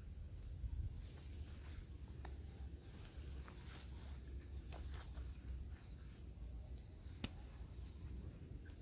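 Insects trilling steadily in a high pitch, with scattered rustles and snaps of footsteps through dry rice stubble and grass, and a faint low rumble.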